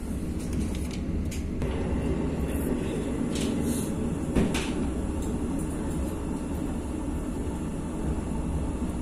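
Steady low rumble of a moving train, heard from inside the carriage through the window glass, with a few light clicks and one sharper knock about four and a half seconds in.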